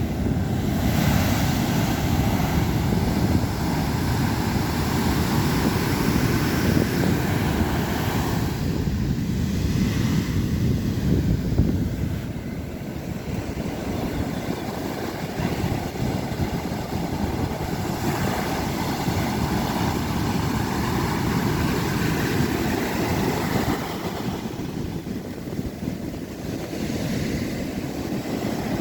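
Ocean surf breaking in a continuous low, rumbling wash that swells and eases, dipping briefly about twelve seconds in and again near twenty-four seconds.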